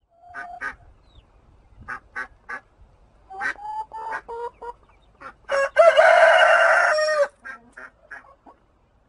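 Rooster crowing once, a loud, long cock-a-doodle-doo lasting nearly two seconds about halfway through, with short clucking calls from the chickens before and after it.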